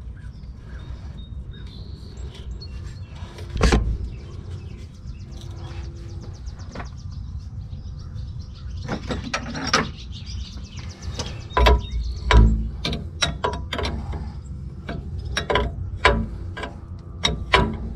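Hand tools clicking and clanking on the air dryer's metal fittings as they are fitted and tightened. The clicks come sparsely at first and much more often in the second half, with heavier knocks about four seconds in and again around twelve seconds. A steady low rumble runs underneath.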